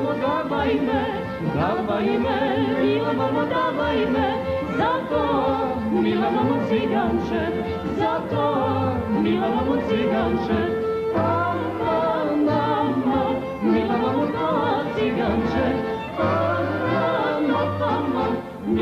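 Live folk music: a folk orchestra with accordion, double bass and guitar plays under a woman's and a man's singing duet.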